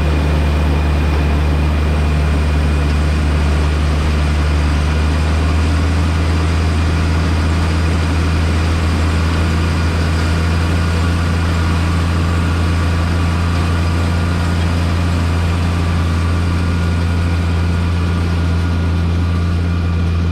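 Heavy farm machinery engine running steadily at constant speed, a loud low drone that does not change.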